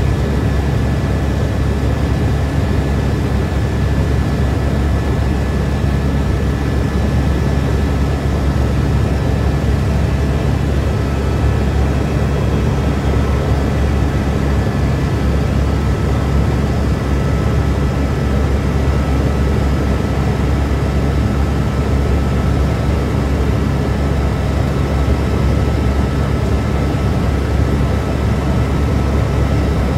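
Helicopter in flight, heard from inside the cabin: a loud, steady drone of rotor and engine noise, with a faint steady high whine above it.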